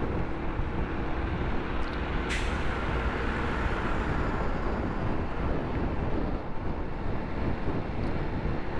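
Steady traffic rumble heard from a moving motorbike, with tyre and wind noise, as it passes close to a heavy dump truck. About two seconds in comes one sudden sharp hiss.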